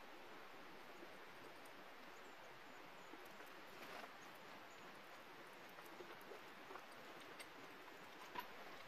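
Near silence: a faint steady outdoor hiss with a few soft, scattered clicks and knocks, about four seconds in and again near the end.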